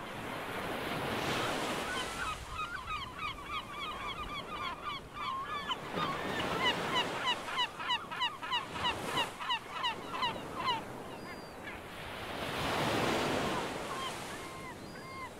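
A flock of birds calling in quick short chirps, several a second, over a rushing noise that swells and fades a few times. The calls thin out near the end.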